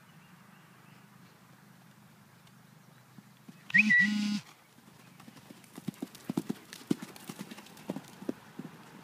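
A short, loud sound with a steady pitch about four seconds in, then horse hooves striking the ground in an uneven run of knocks as the horse moves off.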